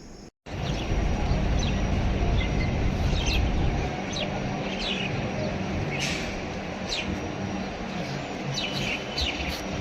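Birds chirping in short, falling calls over a steady outdoor background with a low rumble, the rumble heaviest in the first few seconds.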